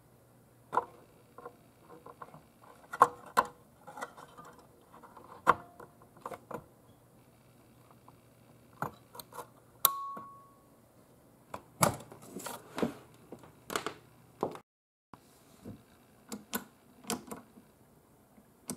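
Clicks, taps and small clinks of a glass preamp vacuum tube being handled and worked into its socket on an amp circuit board, over a steady low hum. A brief ringing ping sounds about ten seconds in.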